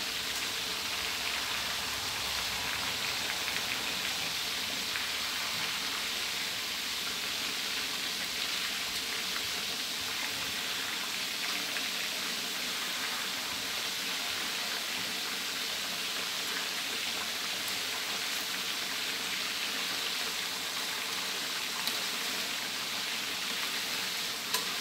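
Pieces of pla som (fermented mrigal fish) deep-frying in a wok of hot oil: a steady, even crackling sizzle.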